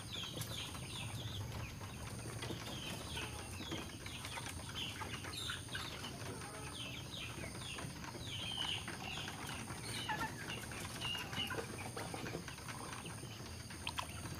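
Birds chirping repeatedly: many short high chirps that each fall in pitch, over a steady low hum.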